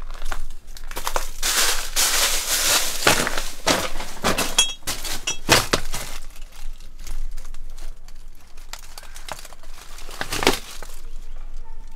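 Footsteps crunching and crackling through dry leaves and plastic litter, dense and continuous for the first few seconds, then sparser.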